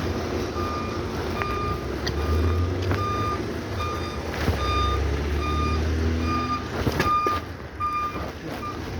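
A vehicle's reversing alarm beeping steadily at one high pitch, about once every three-quarters of a second, over a low engine rumble.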